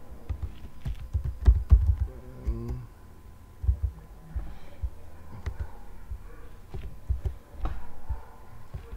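Computer keyboard keystrokes and mouse clicks close to the microphone, scattered irregularly, with dull low knocks among them.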